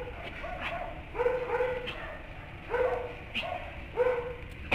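A dog barking repeatedly, one or two barks at a time about every second and a half.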